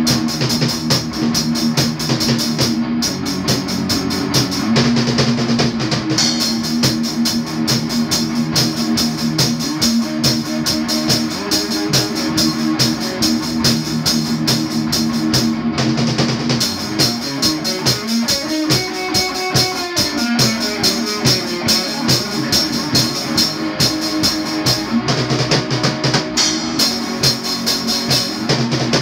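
Drum kit played in a steady rock beat together with an amplified electric guitar holding notes, with a run of sliding notes about two-thirds of the way through.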